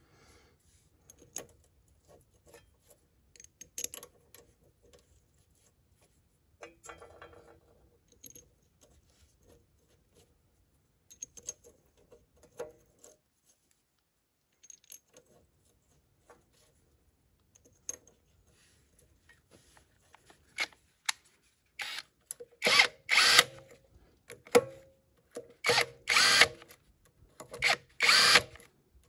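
Light metallic clicks and taps as parts of a tractor's axle seal housing are handled and fitted. Near the end comes a run of loud short bursts, roughly in pairs, as a tool turns a nut down on the threaded axle shaft.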